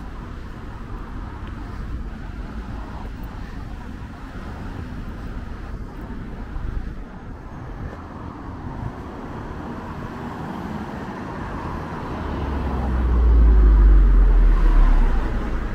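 Road traffic with cars passing steadily. About twelve seconds in a loud low rumble swells for a few seconds as a car passes close by, then eases.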